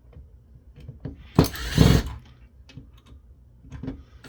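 Small clicks and taps of the disassembled car radio's metal shielding and chassis being handled, with a louder clatter about a second and a half in.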